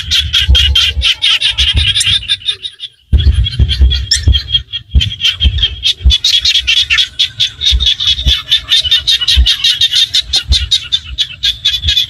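A dense chorus of small frogs calling from a flooded rice paddy: many rapid, overlapping pulsed calls, broken by a brief gap about two and a half seconds in. Dull low thumps sound underneath.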